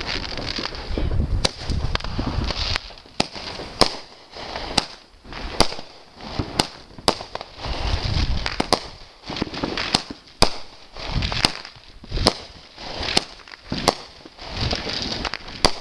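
Fireworks going off: a string of sharp bangs, irregular, about one or two a second, over a rough crackling noise.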